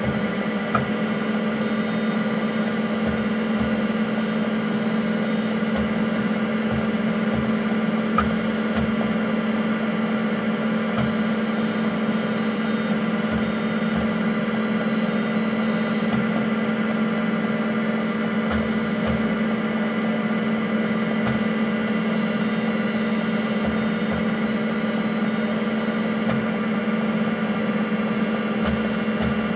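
Vintage IBM PC AT running, its cooling fan, power supply and Seagate ST-4038 MFM hard drive giving a steady hum with several fixed tones. Irregular soft low thuds sound over it from the hard drive's heads seeking under disk activity.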